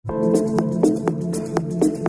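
Background music: an electronic track with a quick, even beat of short plucked notes over steady held tones.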